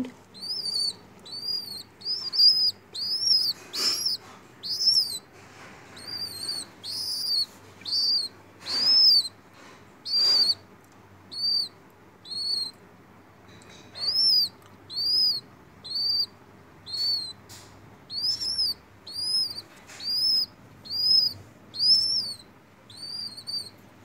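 Nestling pigeon chirping without pause: a run of short, high, up-and-down peeps, about one and a half a second.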